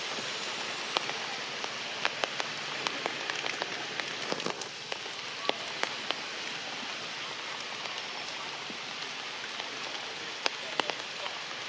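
Heavy rain falling: a steady hiss with frequent sharp, irregular taps of large drops striking close by.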